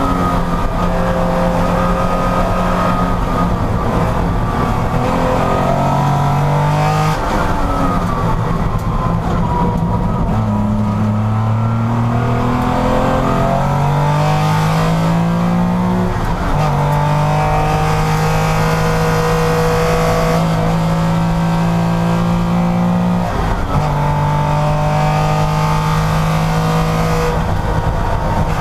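Porsche racing car engine at high revs, climbing in pitch and then dropping sharply at several gear changes, with stretches held near steady speed.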